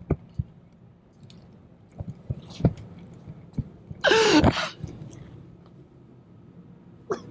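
A man gagging and retching, with one loud heave about four seconds in among smaller mouth and throat noises.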